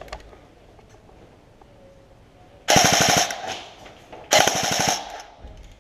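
Two bursts of rapid full-auto airsoft gunfire, a fast rattle of shots. The first comes about two and a half seconds in, and the second, longer one about a second and a half later.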